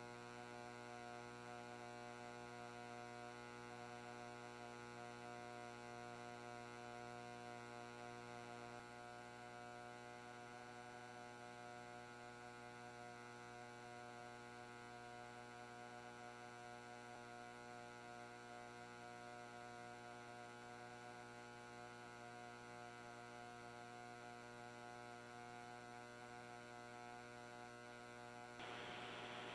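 Near silence: a faint, steady electrical hum made of several fixed tones, with nothing else happening.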